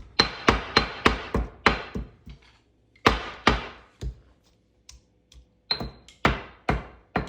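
A knife chopping on a cutting board in quick, even strokes, about three a second. Partway through, the chopping breaks off for about two and a half seconds, with only a couple of scattered knocks, then picks up again.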